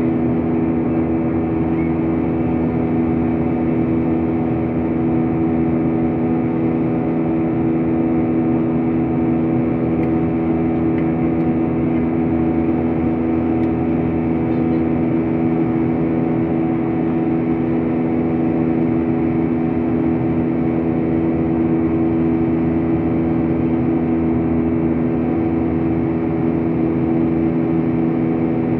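Airliner cabin noise in flight: the engines and airflow make a steady, unbroken drone with a constant low hum.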